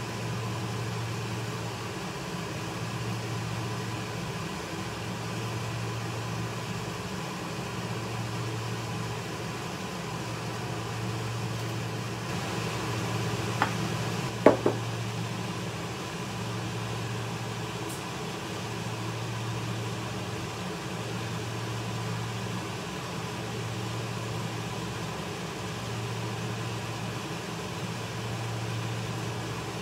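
Low electrical hum of a kitchen appliance that cuts in and out about every two seconds, over a faint steady high tone. There are a few sharp knocks about halfway through.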